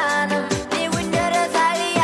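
Electronic pop music, a Turkmen cover of a Western pop song. A kick drum beats about twice a second under a synthesized melody.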